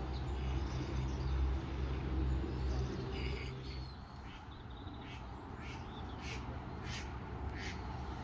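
Birds calling around the lake: a series of short, separate calls starting about three seconds in, over a low rumble that fades after the first few seconds.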